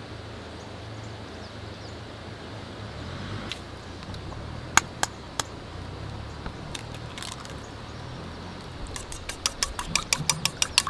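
Eggs tapped against the rim of a stainless steel bowl, giving a few sharp cracks near the middle. Near the end, wooden chopsticks beat the eggs in the bowl with a rapid clinking against the metal. A low steady hum sits underneath.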